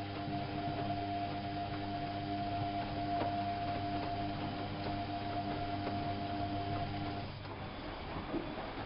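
Whirlpool AWO 5346 washing machine running with a steady, even hum, which stops about seven seconds in.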